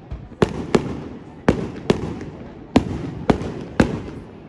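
Aerial fireworks shells bursting in a rapid, irregular series of about eight sharp bangs, each trailing off before the next.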